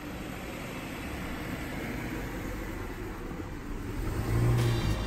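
A hatchback car driving slowly up a slope and passing close by, its engine and tyres growing louder near the end.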